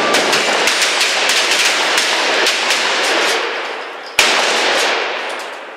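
Shotgun fire from several shooters on a firing line: sharp blasts that each trail off in a long echo, with the loudest single blast about four seconds in.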